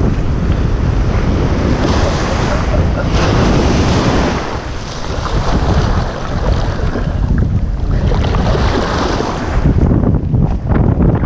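Surf washing up and around the microphone at the waterline in two surges, with heavy wind buffeting on the microphone. A few short knocks come near the end.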